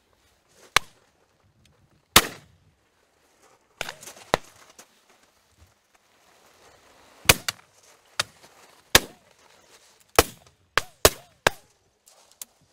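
Double-barrelled shotguns firing about a dozen shots at uneven intervals. Some are loud and close with a short echo, others are fainter and farther off, and several come in quick pairs, one barrel after the other.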